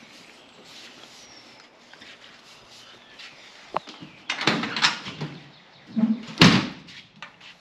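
Driver's door of a 1965 Ford Mustang fastback being worked by hand: a few latch clicks and rattles about four and a half seconds in, then a single loud thump about six and a half seconds in.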